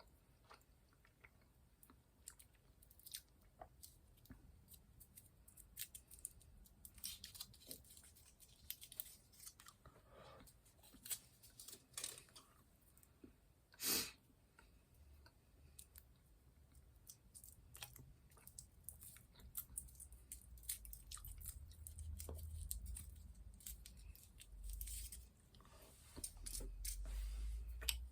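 Faint close-up eating: a person chewing milk-filled chocolate snowdrops, with small crunches and wet mouth clicks and one sharper click about halfway through. A low rumble builds near the end.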